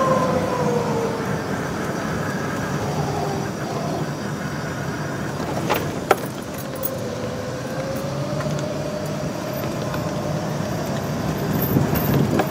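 Arcimoto FUV electric three-wheeler driving, with its drive whine falling as it slows and rising again as it speeds up, over steady road and wind noise. Two sharp clicks about six seconds in.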